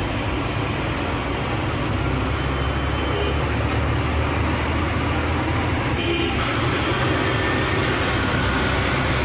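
Bus engine running and tyre and road noise heard from inside the cabin of a moving bus, a steady drone. About six seconds in, the engine note shifts.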